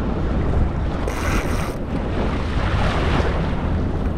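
Wind buffeting the microphone over the sound of open-sea water washing around a fishing boat, with a short high buzz about a second in.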